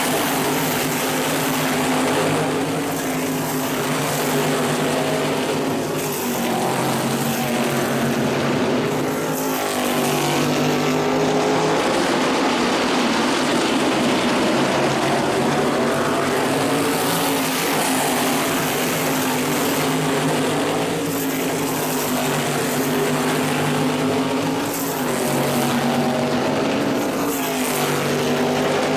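A pack of modified race cars' V8 engines running hard, with the pitch sliding up and down continuously as cars pass by.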